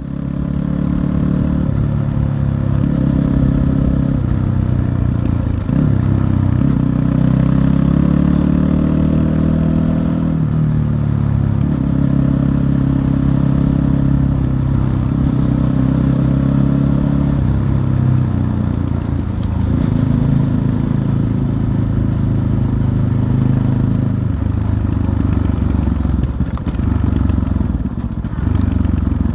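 Fantic Caballero 500 scrambler's single-cylinder engine running while under way. The engine pitch climbs and drops in steps as it is revved through the gears, with a long rising pull about six to ten seconds in.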